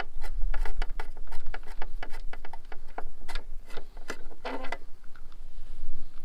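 Rapid, irregular clicking of hand tools and metal as a spark plug is worked loose and turned out of a riding mower's engine, with a brief scrape about four and a half seconds in. Wind rumbles on the microphone throughout.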